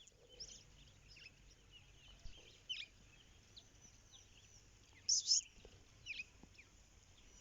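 Birds chirping: scattered short, high calls that sweep downward, with a louder cluster about five seconds in, over a faint low rumble.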